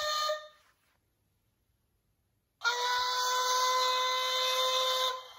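Recorded steam whistle of Talyllyn Railway No 2 Dolgoch, played back through a small loudspeaker on a model-locomotive sound card. The tail of one blast ends just after the start, then a steady blast of about three seconds with a breathy hiss begins a little over two seconds later.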